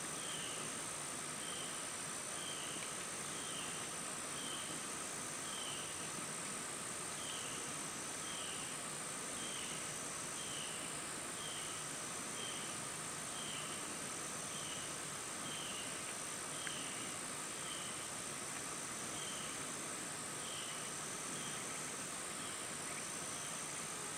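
Evening insect chorus in a field: a steady high-pitched trill over a softer pulsing one, with a short chirp repeating about once a second.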